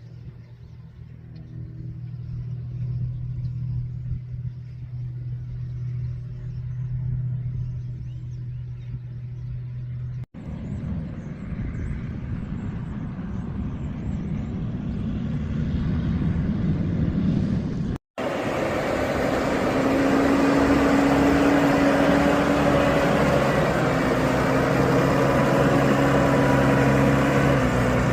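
Farm truck engine running steadily with a low hum, in three short clips joined by abrupt cuts; the last clip is louder, with added steady higher machine tones.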